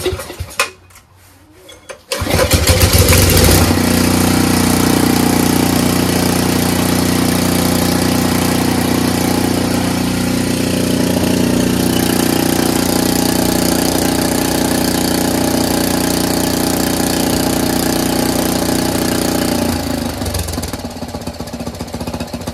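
Briggs & Stratton 6 HP Intek single-cylinder engine on a pressure washer, recoil pull-started with the choke on: it catches about two seconds in, revs up, then runs steadily, settling quieter near the end. It restarts after two-stroke oil poured into the cylinder sealed its rusty bore, which the owner takes for restored compression.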